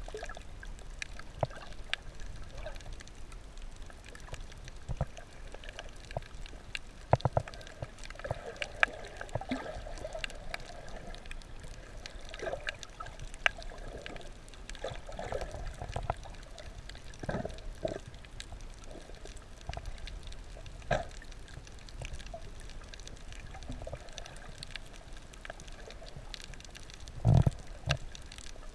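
Underwater ambience picked up by a GoPro in its housing just below the surface: steady water noise and gurgling, with scattered sharp clicks and crackles. A heavier thump comes near the end.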